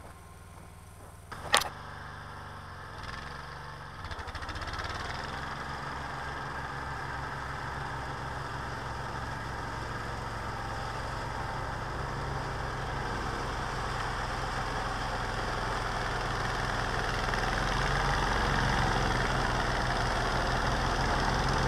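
A sharp click about a second and a half in, then a mini-tractor's engine running steadily under load, driving a homemade single-stage auger-and-rotor snowblower that throws snow. The sound grows steadily louder as the machine comes closer.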